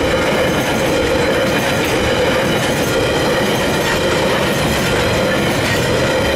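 Freight train of bulk hopper wagons rolling past close by: a steady rumble of wheels on rail, with a steady high-pitched whine over it.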